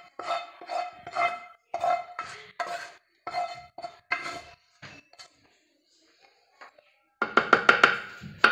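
A wooden spoon knocking and scraping sauce out of a frying pan held over a glazed ceramic bowl, making ringing clinks. There are about ten knocks in the first four and a half seconds, a few scattered taps, then a quick rattle of scrapes near the end.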